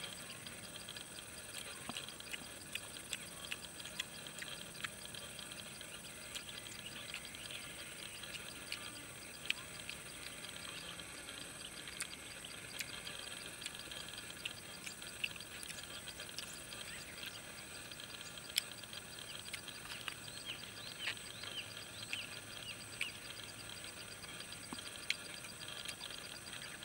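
A steady chorus of insects chirping, high-pitched and layered, with scattered short clicks here and there.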